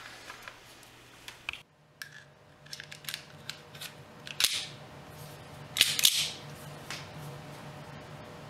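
Metallic clicks and clacks of a homemade sheet-metal .25 ACP pistol's slide being racked by hand, cycling rounds through with no firing pin fitted to test feeding and ejection. Two of the clacks, near the middle, are louder than the rest.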